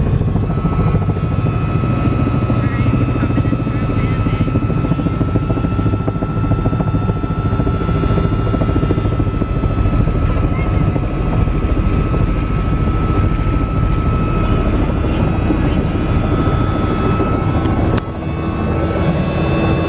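Helicopter engine and rotor running steadily, heard from inside the cabin as a loud, even drone. About eighteen seconds in there is a sharp click and a brief dip in the noise before it carries on.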